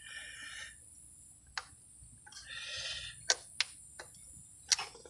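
Spark plug wire boots being pressed down onto the plugs of a 2002 Dodge Neon 2.0: about five small, sharp clicks as the boots snap onto the plug terminals, with brief scuffing between them.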